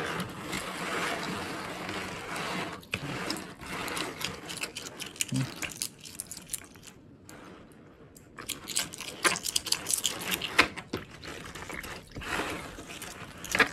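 Strings of brass 5-yen coins clinking and rattling against each other as they are rubbed by hand in a plastic basin of water, with water swishing. The clinks come thick and sharp in the second half.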